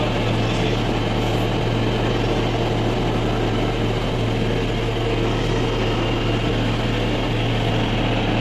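Cotton candy machine running: a steady hum from its half-horsepower electric motor spinning the heated spinner head as it throws out sugar floss.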